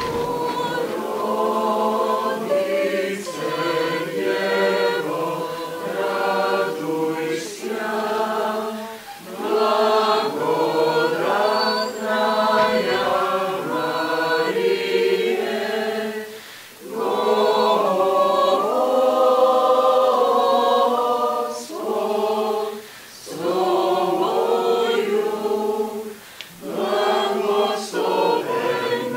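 A choir singing a cappella, in sung phrases broken by a few brief pauses.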